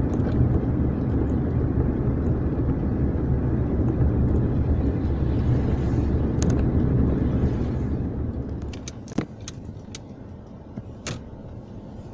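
Car driving on a wet road, heard from inside the cabin: a steady low rumble of road and tyre noise. The rumble drops off about eight seconds in, and a few sharp clicks or taps follow.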